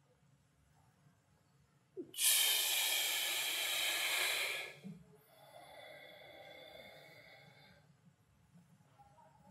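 A man's deliberate exercise breathing: about two seconds in, a loud hissing breath lasting about two and a half seconds, then a quieter, longer breath with a faint whistle.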